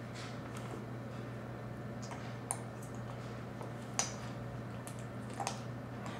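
Faint, scattered clicks and taps of a spoon against a plastic feeding bowl and a baby's mouth during spoon-feeding, the sharpest about two and a half and four seconds in, over a steady low hum.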